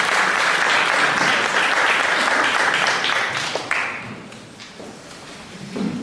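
Audience applauding in a large hall: dense clapping for about three seconds, thinning to a few scattered claps and dying away about four seconds in.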